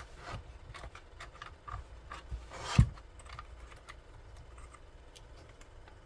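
Handling noise from the opened router: its plastic shell and metal frame rubbing and clicking as they are moved on a desk mat, with one louder knock nearly three seconds in. The second half is quieter, with only faint scrapes.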